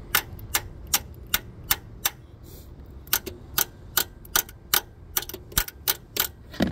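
Sharp clicks from a hand tool worked at a bolt hole of an engine's alternator mounting bracket: a run at two to three a second, a pause of about a second, then a faster run at about four a second.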